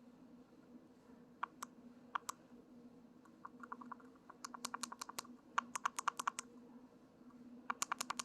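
Light plastic clicks from a car key fob being handled and its buttons pressed: a few single clicks, then quick runs of about eight to ten clicks a second. A faint steady hum lies underneath.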